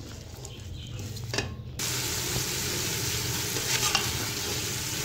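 Shredded cabbage and potatoes sizzling as they fry in oil in a metal pressure cooker, stirred with a spatula that scrapes against the pot. The steady frying sizzle sets in suddenly about two seconds in.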